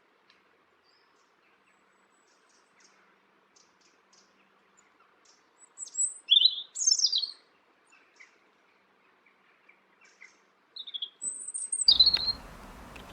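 Small bird singing: faint high chirps, then two loud phrases of high, quickly sweeping notes about six and eleven seconds in. Near the end a steady background hiss starts abruptly.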